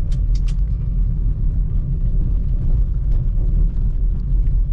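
Maruti Suzuki S-Presso's three-cylinder engine and road noise heard from inside the cabin while driving: a steady low rumble, with a few light clicks in the first half second.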